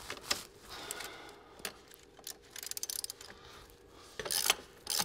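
Socket ratchet clicking as one of the bolts holding the front hub to the strut is turned loose, with a quick run of clicks about halfway through. Knocks and scrapes of the tool on metal come in between and are loudest near the end.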